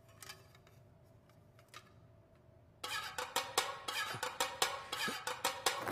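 Fast rhythmic percussion of steel plates being beaten, about four to five sharp strikes a second, starts about three seconds in. Before it there is a quiet stretch with a few faint knocks.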